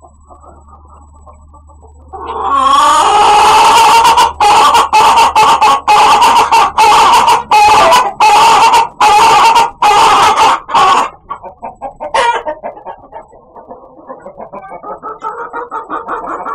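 A chicken calling loudly and insistently. About a dozen drawn-out pitched calls come roughly two a second, then it drops to softer, rapid clucking.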